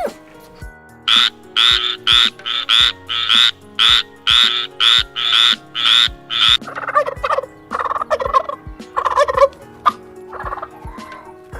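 Farm fowl calling: a quick run of about a dozen short, harsh calls, roughly two a second, then a few lower, looser calls in the second half.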